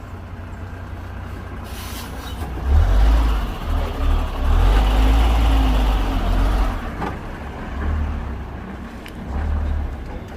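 A heavy road vehicle passing on a city street. Its low engine rumble and tyre rush swell from about two seconds in and fade by about seven seconds, with lesser low rumbles after.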